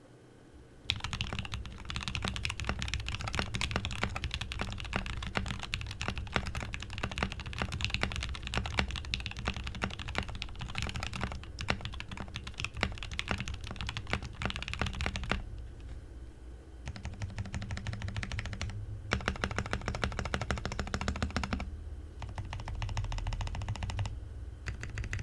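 Fast typing on a custom mechanical keyboard: a polycarbonate Think6.5 v2 with lubed, filmed Diamond linear switches, an FR4 plate and PBT keycaps, giving a dense, even clatter of keystrokes. It starts about a second in, stops briefly a little past the middle, and resumes in a few short runs.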